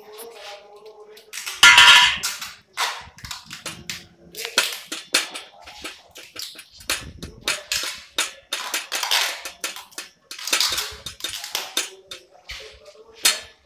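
Irregular clicks, clatters and short scraping noises from handling and binding copper AC pipes and tape. The loudest scrape comes about two seconds in and another sharp one near the end.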